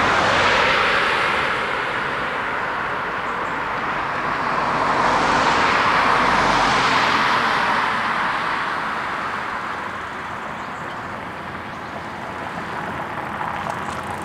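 Road traffic: cars passing close by, tyre and engine noise swelling and fading. It is loudest about a second in and again around six seconds, then eases off.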